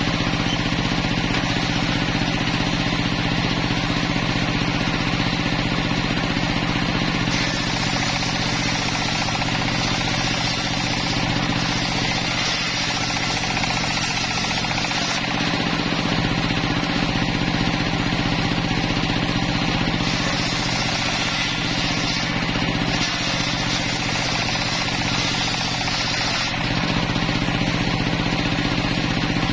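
Home-built circular sawmill running steadily, its big blade ripping lengthwise through timber. A constant machine hum sits under the cutting noise, which grows brighter and eases off several times as the wood is fed through.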